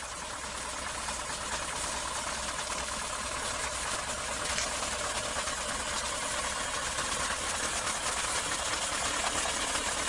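Heavy truck engines running steadily, a low hum under a strong even hiss that grows slightly louder over the first second.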